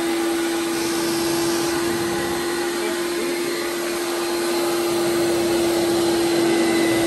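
Carpet washing machine running steadily, its motor giving a continuous hum with one steady tone over an even rush of suction noise.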